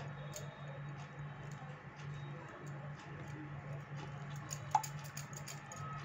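Faint, irregular clicks and taps of a plastic spatula against a glass baking dish while liquid is stirred into flour, getting busier near the end, over a steady low hum.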